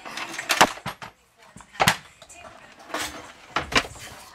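Knocks and clunks of a hand-held power drain snake being lifted out of its metal carrying case and set down: a handful of sharp knocks about a second apart.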